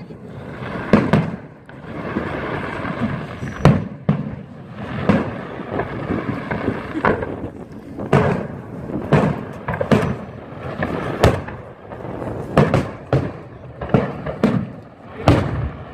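Fireworks display: aerial shells bursting overhead in a string of more than a dozen booms, roughly one a second, with a steady rumble between them.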